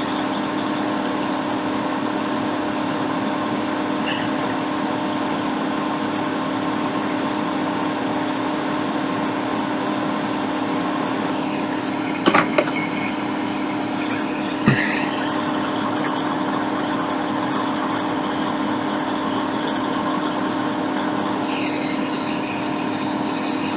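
Soldering fume extractor fan running with a steady hum. A few short sharp clicks, a cluster about halfway through and one more shortly after.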